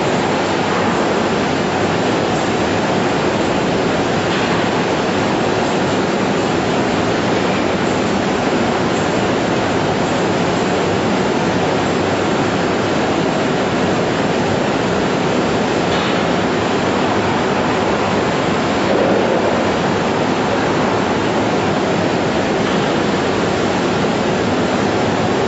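Poultry processing line machinery running, a steady loud rushing noise with a few faint ticks.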